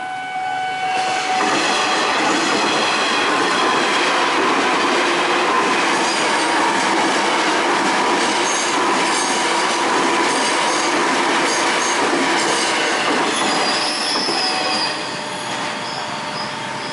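KRL Commuter Line electric multiple-unit train passing over a level crossing at speed. The rush of wheels and carriages builds about a second in, holds for roughly fourteen seconds, then eases off as the train moves away.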